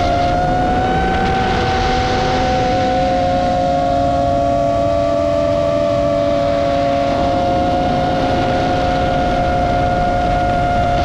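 The brushless motors and propellers of a Roma F4 LR FPV quadcopter whining at a steady cruise: several close pitches hold nearly level, drifting slightly up and down, over a hiss of wind and prop wash.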